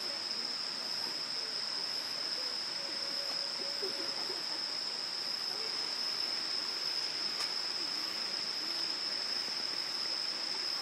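Insects trilling in one steady, unbroken high-pitched note over the constant rush of a nearby stream.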